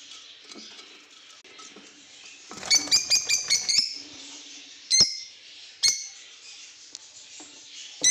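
African lovebirds calling, with faint chirping chatter throughout. About two and a half seconds in comes a loud, rapid run of shrill calls lasting about a second, then two single sharp shrieks about a second apart, and another near the end.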